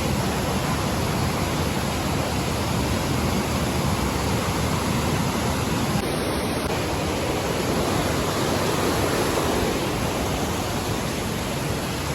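Steady rain falling, a loud, even hiss with no break.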